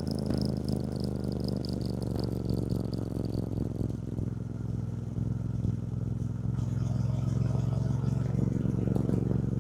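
2024 Triumph Bonneville T120's 1200 cc parallel-twin engine running while riding, a steady low engine note that eases briefly around the middle and then pulls steadily again.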